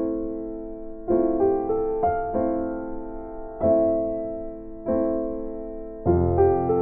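Background piano music: slow chords struck about once a second, each ringing out and fading, with deeper bass notes joining near the end.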